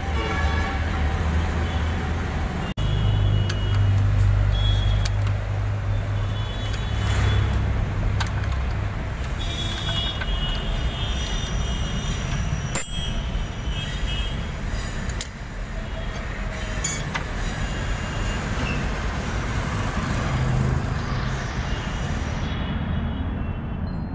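Steady low rumble of road traffic, with a single sharp metallic click about halfway through.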